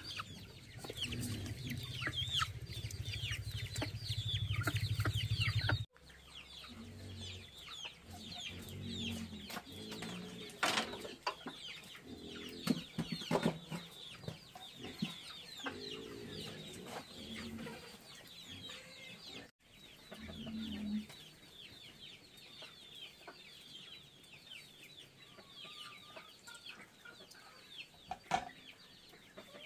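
Chickens clucking amid many quick, high chirps. A low steady hum sits under the first six seconds and cuts off suddenly.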